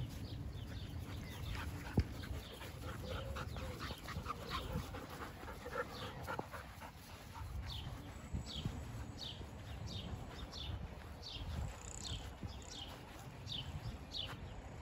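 A dog panting in quick, even breaths.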